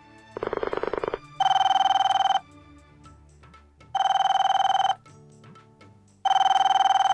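Telephone ringing: three trilling rings of about a second each, evenly spaced, preceded by a short buzz just before the first ring.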